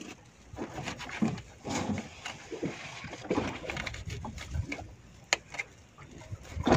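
Knife cutting a small fish into bait pieces on a fibreglass boat's gunwale: irregular scrapes and light knocks of the blade on the hull. There is a sharp click about five seconds in and a louder knock near the end.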